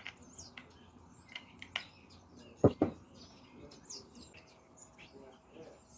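Faint clicks of a small camera microphone and its mount being handled, with one louder sharp knock a little before halfway. Faint high chirps sound throughout.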